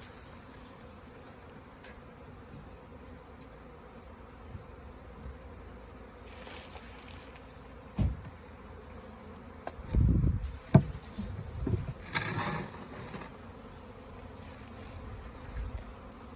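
Honey bees from a swarm buzzing steadily in the air around the fence and hive box. A few muffled low thumps stand out about halfway through, the loudest a little past the middle.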